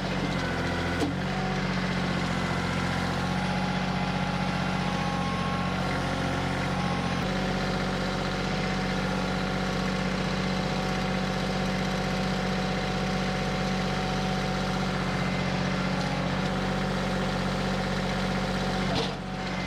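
Compact diesel tractor engine (Kioti CK2610) running steadily at low revs, with a slight change in its note about seven seconds in.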